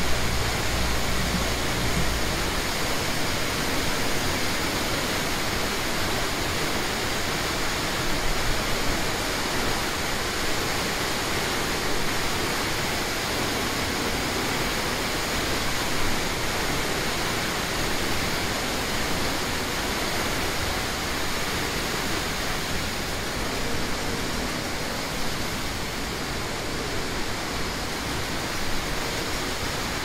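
Waterfall rushing steadily, an even unbroken wash of water noise, with a brief low rumble in the first couple of seconds.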